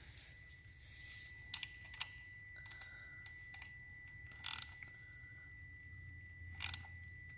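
Hand tools and metal parts clicking and tapping as the shift shaft support bracket is fitted and its bolt run in, with two short ratcheting bursts in the second half, the second near the end.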